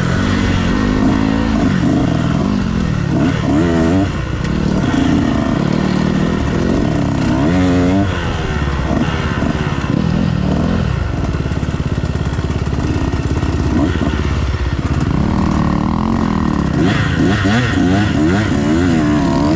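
Dirt bike engine being ridden, revving up and dropping back again and again with the throttle, its pitch climbing and falling every second or two.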